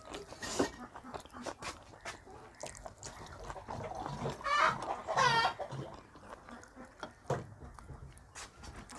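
A chicken calling twice, two short squawks about four and a half and five and a half seconds in, over scattered soft clicks of eating food by hand from a plate.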